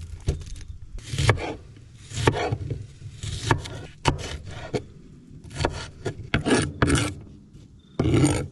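A kitchen knife chopping onion and green bell pepper on a plastic cutting board: a run of short, sharp knife strokes at uneven spacing, with some scraping of the blade across the board.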